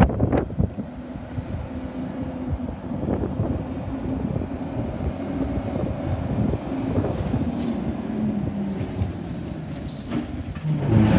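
Waste Management garbage truck's diesel engine running as the truck approaches, getting louder, with an air-brake hiss near the end as it pulls up at the curbside bins.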